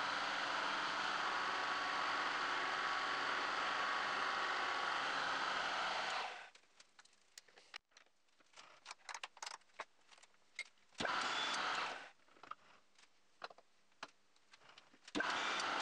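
Milling machine spindle running, its end mill cutting into a metal bar: a steady machining noise that cuts off about six seconds in. Small clicks and taps follow as tools are handled, with two short bursts of the same machine noise, one near the middle and one at the end.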